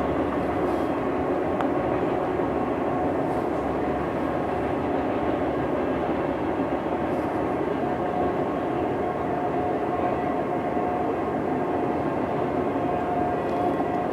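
Autorack freight cars rolling past on the rails, a steady continuous rolling noise. A thin steady tone comes in about eight seconds in.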